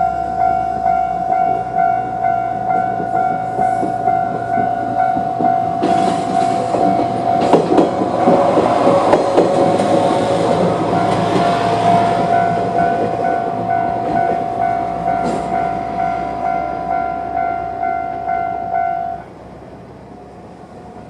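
A Japanese level-crossing alarm rings in a steady repeating pattern while a Mooka Railway Moka14 diesel railcar passes over the crossing. Its wheels clatter loudest from about six to twelve seconds in. The alarm stops suddenly near the end, once the train has cleared.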